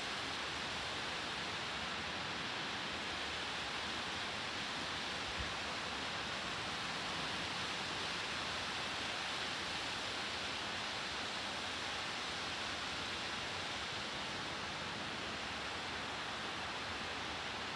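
Steady, distant dull roar of a mountain waterfall running high after recent rains: an even rushing with no breaks.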